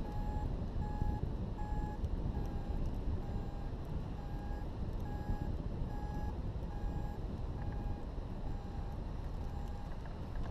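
Hang glider variometer beeping steadily, about three short beeps every two seconds at a nearly constant pitch, the sign of a gentle climb in light lift. Under it, the rush of wind across the microphone.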